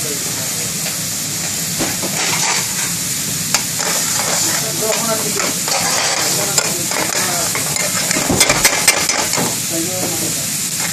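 Chicken in cream sauce bubbling and sizzling in an aluminium frying pan over a gas flame, while a metal spoon stirs and scrapes the pan. A quick run of sharp clinks about eight seconds in.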